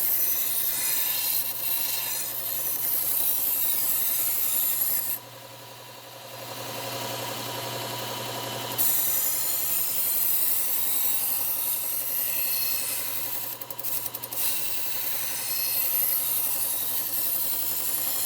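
Steel knife blade being ground on a slow-speed bench belt sander with a Cubitron 120-grit belt: a steady rasping grind over the motor's hum. About five seconds in the grinding stops for some three seconds, leaving only the hum as the blade is lifted off the belt, and it breaks off again briefly near the middle.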